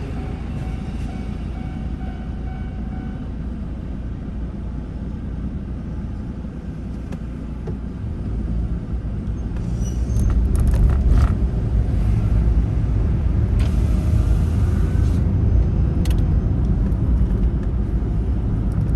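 Steady low rumble of a moving vehicle, growing louder about nine seconds in, with a few sharp knocks and a brief hiss.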